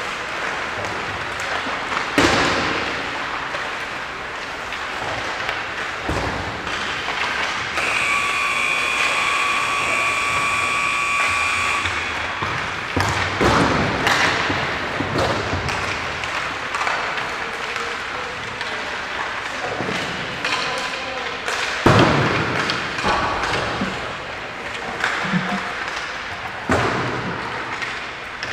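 Ice hockey rink during warm-up: sharp knocks of pucks and sticks, with several loud cracks such as pucks hitting the boards, over the hall's echoing background. A steady high electronic-sounding tone sounds for about four seconds in the middle.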